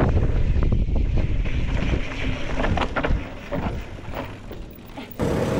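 Wind buffeting the microphone with a heavy low rumble that eases after about two seconds, leaving a few short knocks, then cuts off abruptly near the end.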